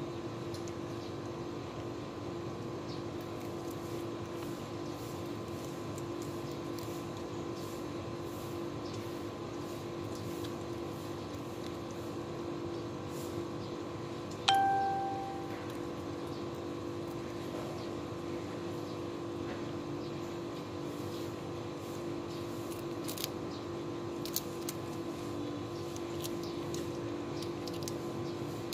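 Kittens chewing shrimp shells: faint small crunching clicks over a steady background hum. About halfway through, a single bright metallic ding rings out and dies away within half a second.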